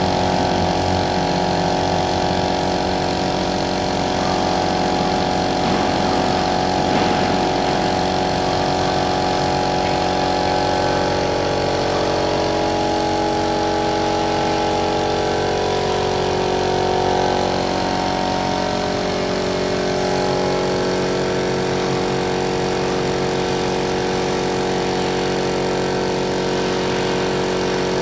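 Air compressor motor running steadily, with the hiss of a gravity-feed spray gun spraying paint onto a metal railing.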